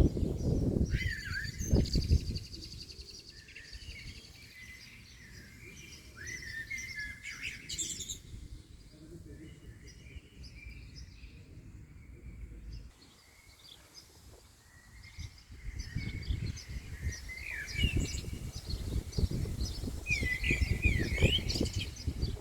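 Several wild birds chirping and singing in short, rising and falling phrases. Gusts of wind buffet the microphone with a low rumble at the start and again over the last few seconds.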